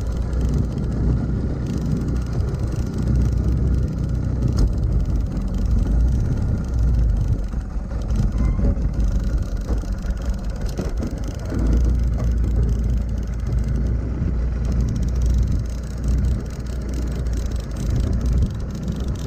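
Small Tohatsu outboard motor running steadily at low speed, a continuous low rumble.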